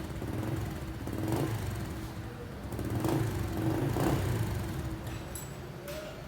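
Motorcycle engine running steadily, swelling louder about a second in and again twice around three to four seconds in, then settling.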